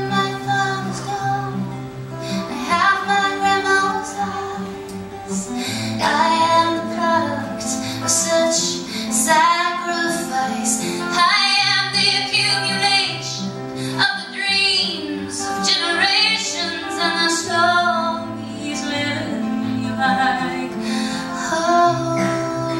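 A woman singing a folk ballad live, accompanying herself on a strummed acoustic guitar.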